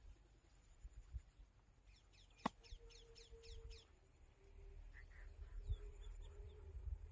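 Faint bird calling: a quick run of about eight high, downward-sliding notes about two seconds in, with a single sharp click in the middle of it and a few softer notes later. A low rumble runs underneath.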